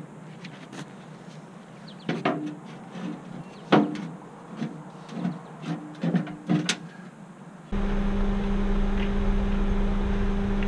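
Scattered knocks and clicks of metal tools being handled, some with a short ring, then about eight seconds in an angle grinder starts suddenly and runs with a steady hum.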